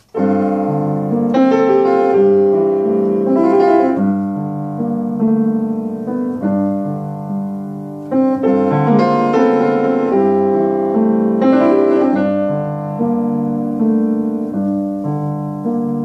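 Steinway Model D 274 concert grand piano playing slow, sustained chords in two similar phrases, the second beginning about eight seconds in.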